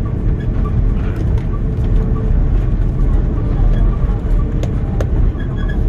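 Steady low rumble inside the cabin of an Airbus A330-300 rolling down the runway after touchdown: engine noise and wheel rumble from the landing roll, with a couple of sharp clicks near the end.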